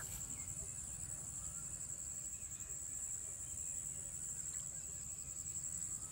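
Insects chirring in one steady, high-pitched drone, over a low, even rumble.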